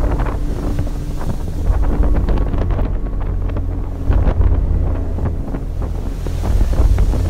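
Storm wind buffeting the microphone with a heavy rumble, over rough seas breaking and splashing against a ship's hull in bursts of spray.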